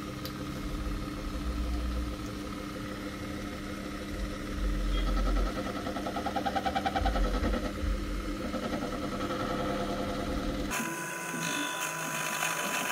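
Proxxon mini lathe running with a steady motor hum while turning a rebar-steel shaft down to 10 mm, with a stretch of rhythmic pulsing in the middle. Near the end the sound changes abruptly to a thinner, steady whine.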